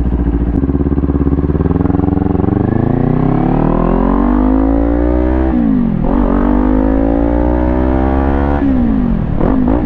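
Kawasaki Ninja 400's parallel-twin engine through a new Leo Vince GP Corsa exhaust, accelerating under way. The note climbs steadily, drops sharply at an upshift about halfway through, then climbs again and drops at a second shift near the end.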